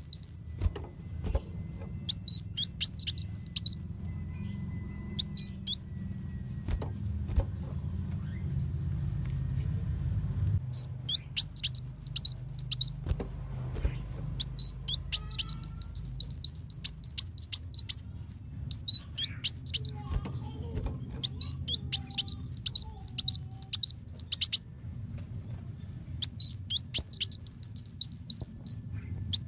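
Kolibri wulung sunbird singing in repeated rapid, high, twittering phrases. Each phrase lasts a second or several, with pauses of a few seconds between, over a faint low hum.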